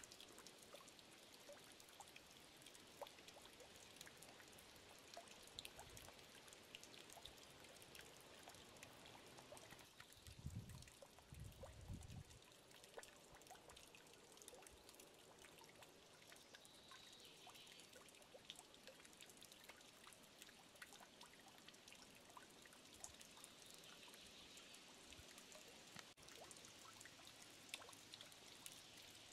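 Solar fountain running, its falling water splashing and trickling steadily, faint. Two short low thumps come about ten and twelve seconds in.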